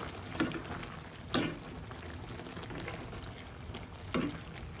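Wooden spoon stirring a wet, simmering skillet of squash, string beans and ground pork, with three sharp knocks or scrapes against the pan over a steady bubbling wash.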